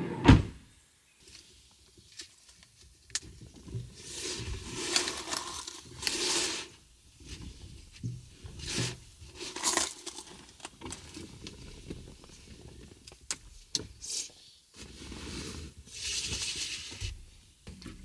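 A car's side door shuts with a single sharp thud just after the start. Cloth window curtains are then pulled along their rails inside the small car cabin, in several swishing rustles with light clicks between them.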